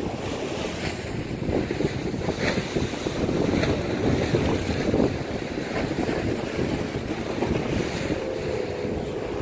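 Wind buffeting the microphone over waves washing and splashing against shore rocks. About eight seconds in, a boat engine's steady drone joins in.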